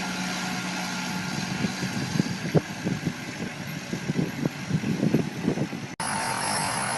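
Machine engine running steadily, joined from about two seconds in by a run of irregular knocks and clunks. Near the end it cuts off abruptly to a different, steady machine noise.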